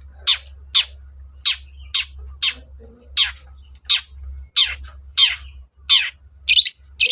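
Long-tailed shrike giving harsh, scratchy calls, each one sweeping downward, repeated about twice a second and coming quicker near the end.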